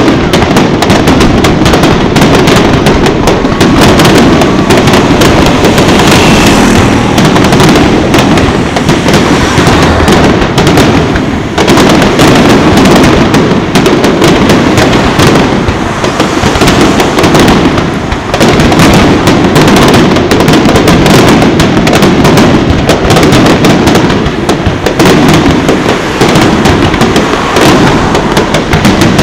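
A dense, continuous barrage of aerial firework shells bursting, overlapping booms and crackling with almost no gaps, very loud, easing only briefly about twelve and eighteen seconds in.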